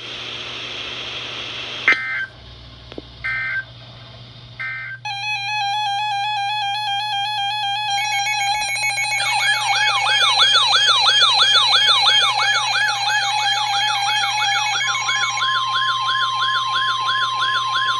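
NOAA Weather Radio alert signals: three short digital data beeps, then layered electronic tones. From about 9 s in, a siren-like alert tone rises and falls about twice a second, and a steady warning alarm tone joins it about 15 s in.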